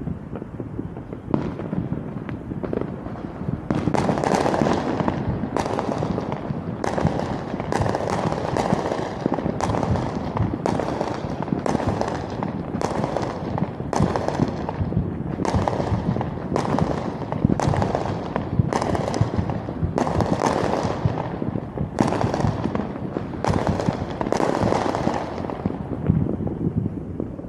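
Fireworks going off in a steady run, about one bang a second for some twenty seconds, each with a crackling tail. A few lighter pops come before the run starts.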